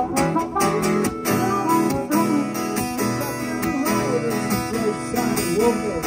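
Acoustic guitar strummed steadily in a live performance, with a bending melody line over the chords.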